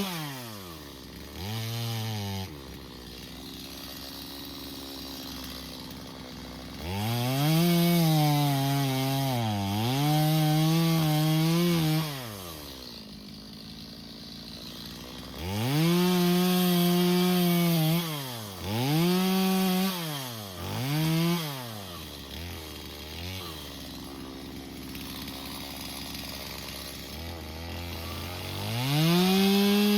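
Stihl MS 250 two-stroke chainsaw revving up to full throttle and holding there for several seconds, then dropping back to idle, several times over, with a few quick throttle blips in between and a rise back to full speed near the end.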